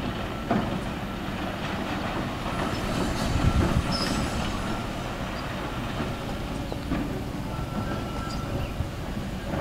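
Light truck driving slowly over a rough, rocky dirt track: a steady low rumble with scattered knocks and rattles.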